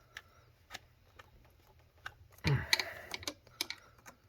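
Scattered light clicks and taps of a hose wrench and hands working at a fuel hose connection, with a louder knock and rattle about two and a half seconds in.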